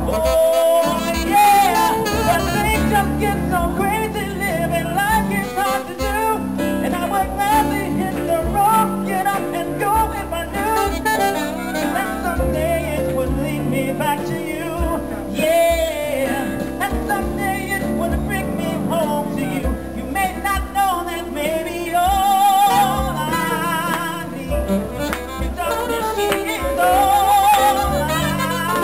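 Live piano-bar song: a man sings into a microphone over piano accompaniment, with a saxophone in the band.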